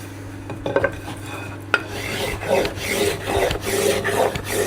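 Low-angle block plane (Verum) being pushed across wood in quick short strokes, each a brief rasping swish of the blade taking a shaving. The strokes come about two or three a second, starting about two seconds in after a couple of light knocks.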